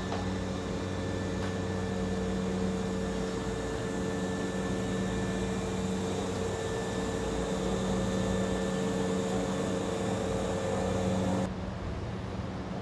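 Hankyu electric train running with a steady hum: a low drone with a higher steady tone above it, over noise. The hum drops suddenly to a quieter, duller noise near the end.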